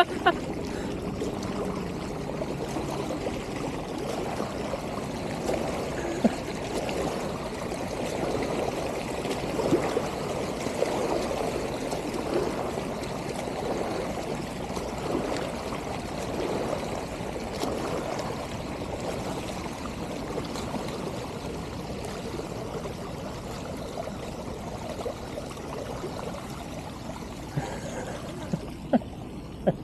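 Moving floodwater running and gurgling steadily, with a few sharp clicks near the end.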